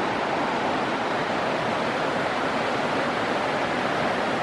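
River water rushing over rocks in rapids: a steady, even rush with no breaks.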